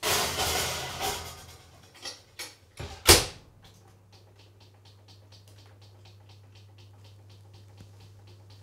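Ceramic oven dish slid onto the oven rack with a scrape, a few light knocks, then the oven door shut with a loud thump about three seconds in. A steady low hum follows, with faint regular ticks, about three a second, as the oven timer is set.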